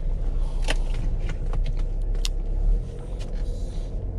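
A car being driven: steady low road and engine rumble heard inside the cabin, with a few light clicks and taps.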